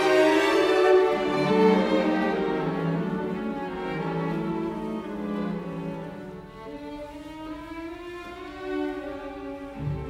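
Background music of slow bowed strings, violin and cello, growing gradually softer.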